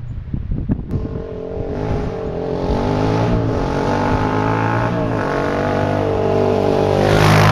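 Honda 300EX quad's single-cylinder four-stroke engine through an FMF PowerCore 4 exhaust, approaching under throttle and getting steadily louder, its pitch rising and falling with throttle and gear changes. It is loudest as it passes close near the end.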